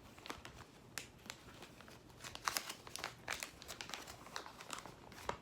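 Packaging crinkling and rustling in the hands, with scattered small clicks, as lighter cases and wrappings are handled.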